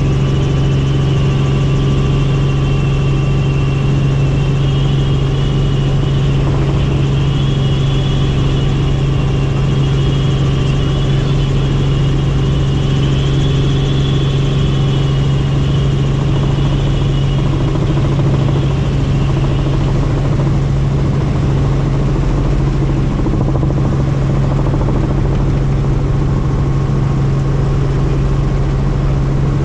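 Helicopter in flight: a steady, loud drone of rotor and turbine engine. A thin, wavering high whine rides over it for the first two-thirds and then fades out.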